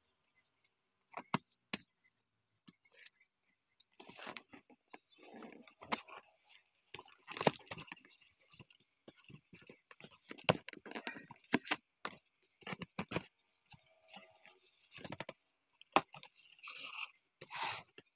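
Fingers scraping and picking at clear packing tape on a cardboard box, in irregular bursts of scratching and crinkling with a few sharp clicks; the tape is peeling away from the cardboard near the end.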